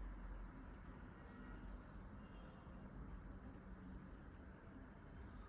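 Vacheron Constantin skeleton tourbillon watch movement running, giving faint, quick, even ticks at about five a second, its 18,000 beats per hour.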